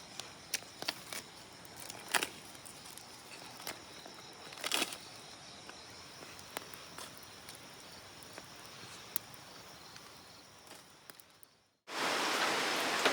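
Scattered crackles and snaps over a faint outdoor background, fading out. Near the end it cuts to a loud, even rush of running water.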